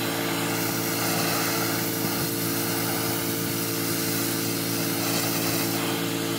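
Pressure washer running steadily: a constant motor drone under the hiss of the high-pressure water jet spraying against the food truck's metal side panels.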